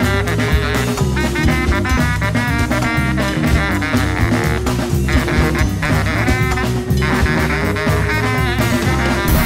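Upbeat swing-style background music with brass and a drum kit and a steady beat.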